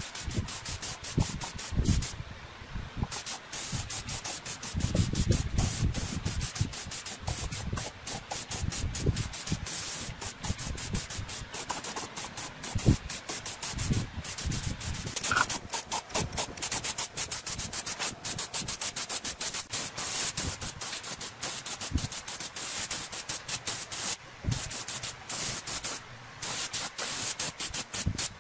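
Air spray gun spraying paint onto a water pump housing: a hissing spray with a rapid, even pulse to it, briefly stopping near the start and turning brighter and steadier from about halfway through.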